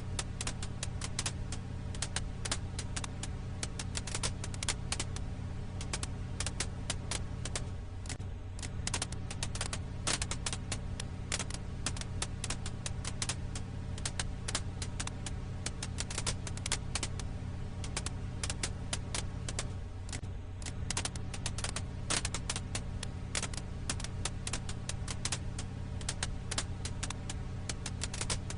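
Wood fire crackling: a dense, irregular run of small pops and snaps from burning firewood over a steady low rumble.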